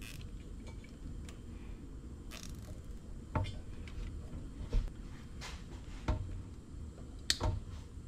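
Scattered light clicks and taps of hands handling plastic zip ties and small tools on the engine, over a low steady hum.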